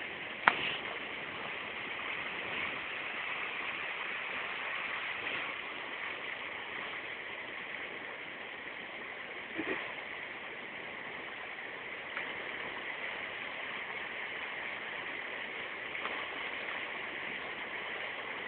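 Steady rush of river water flowing over rocks, with a sharp click about half a second in.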